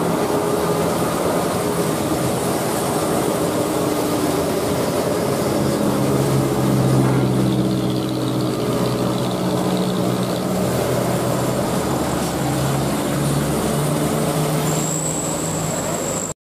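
Diesel engine of a Hino 500 dump truck loaded with sand, pulling steadily up a steep grade. Its note steps a few times, and tyres hiss on the wet road. A thin high whistle starts near the end.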